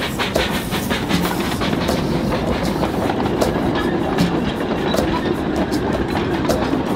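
Small 1906 Munich-built narrow-gauge 0-4-0 steam locomotive running along the track with its carriages, wheels clicking irregularly over the rails and steam hissing from near the wheels.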